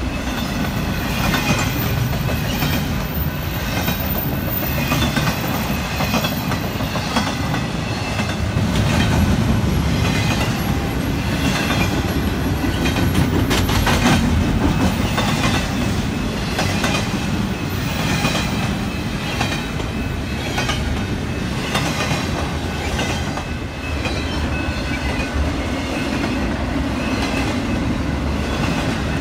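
Double-stack intermodal freight train's container well cars rolling past at a grade crossing: a steady rumble with the clickety-clack of wheels over the rail joints.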